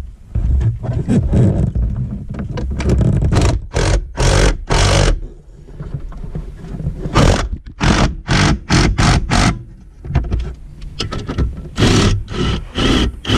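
A hand tool tightening down the front emergency brake cable hardware: a series of short, sharp strokes in quick runs, one run of about three strokes a second.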